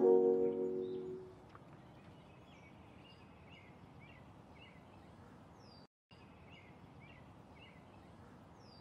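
The last piano chord of the background music rings and fades out in the first second or so. After it comes faint outdoor ambience, with small birds chirping in short repeated calls, cut off briefly by a moment of dead silence about six seconds in.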